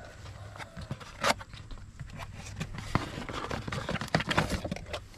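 Cardboard box of a new oil filter being opened by hand, the flaps and the metal filter can scraping and knocking against the cardboard in a quick run of handling noises, with one sharp knock about a second in.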